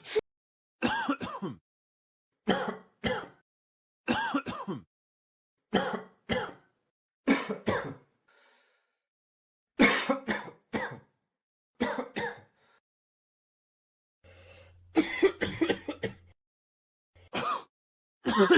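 A person coughing and clearing their throat in short fits of two or three coughs, repeated every second or two with a few brief pauses.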